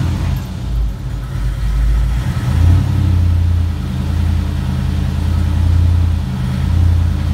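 Ford 5.0 V8 of a Fox-body Mustang running at a fast cold idle just after a cold start, heard from inside the cabin. The raised idle holds with no throttle applied, with the rev control left to the freshly rebuilt engine computer.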